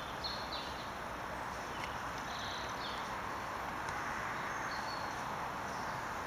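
Several short, high chirps of small birds over a steady hiss of woodland background.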